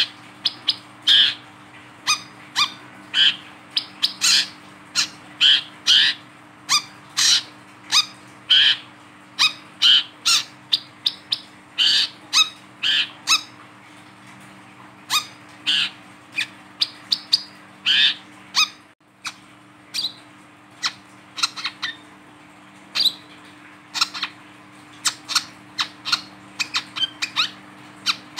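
Male brown-throated sunbird (wiceh, kolibri kelapa) giving loud, sharp chirping calls in a rapid, irregular series of one to three a second, with a short pause about halfway through.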